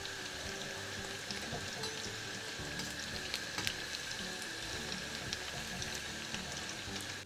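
Batter-coated cauliflower deep-frying in hot oil on high heat: a steady sizzle with scattered small crackles. Faint music runs underneath.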